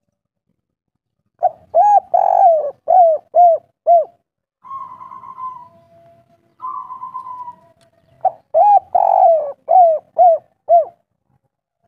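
Spotted dove (derkuku), of the kuk-3 song type, cooing: two phrases of about six short arched coos each, with softer rough trills in the gap between them.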